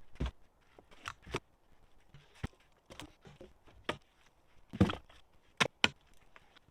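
Irregular knocks and scuffs, the loudest a cluster of knocks about five seconds in followed by two sharp clicks.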